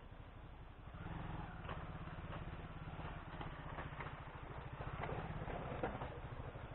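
Motorcycle engine running at low speed, a fast, even beat that grows louder about a second in, with scattered sharp clicks over it.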